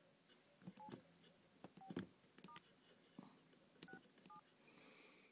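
Touch-tone phone keypad being dialed: about five short, faint dual-tone beeps, each with a key-press click, spaced irregularly.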